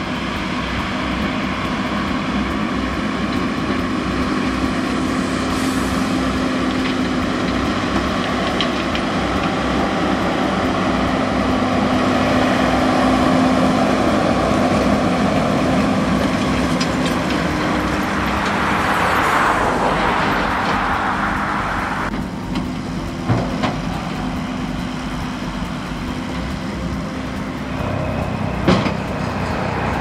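JCB Fastrac tractor running steadily while pulling a McHale V6 round baler that is picking up and baling straw, with a regular low pulsing under the engine. A few sharp knocks come from the baler in the last seconds, around the time a finished bale is dropped out behind it.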